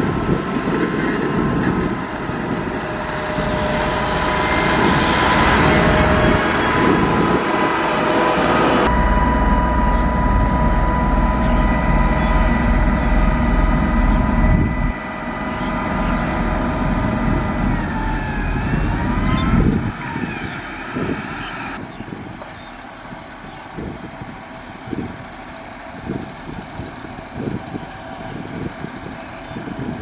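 Heavy diesel machinery working, most likely the motor grader's engine: a steady low rumble with a held whine over it. About twenty seconds in the rumble drops away abruptly, leaving a quieter engine sound broken by many short knocks and clicks.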